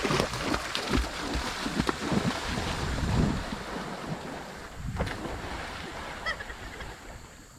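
Water splashing and churning, with wind buffeting the microphone; the splashing is busiest in the first few seconds and then eases off.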